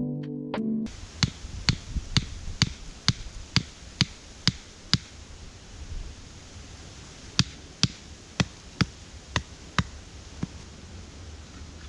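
Repeated sharp knocks of wood being struck, about two a second, in two runs with a pause of a couple of seconds between them, over steady wind noise.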